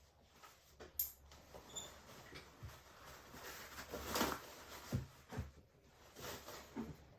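Paintbrush strokes on canvas: faint, irregular scratchy brushing and dabbing as acrylic paint is worked in, with one louder stroke about four seconds in.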